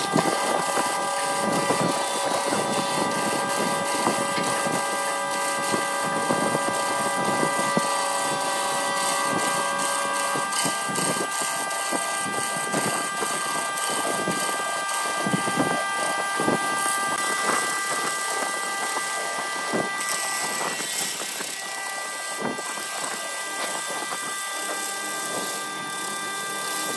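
Wood lathe running with a steady whine while a gouge cuts a spinning wood-and-resin blank, the tool scraping and hissing as shavings come off.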